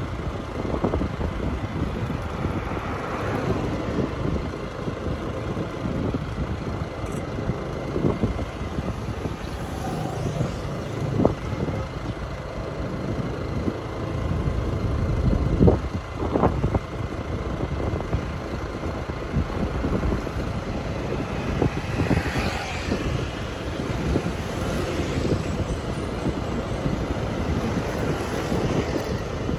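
Wind buffeting the microphone over a steady low rumble of vehicle and road noise while travelling along a street, with a few sharp knocks near the middle.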